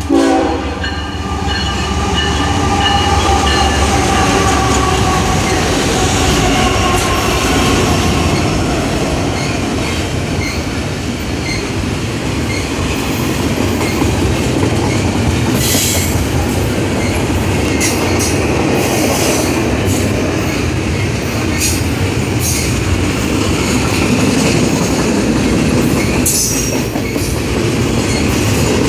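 Freight train passing close by: the locomotives go by at the start, their tone falling slowly in pitch, then double-stacked container cars roll past with a steady wheel rumble and clatter. Brief high wheel squeals come about halfway and near the end.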